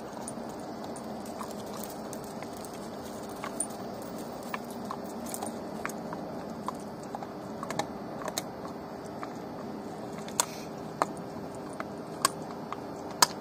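Dog chewing bones, with sharp cracks and crunches at uneven intervals, several louder cracks in the last few seconds. The chain on its collar clinks now and then.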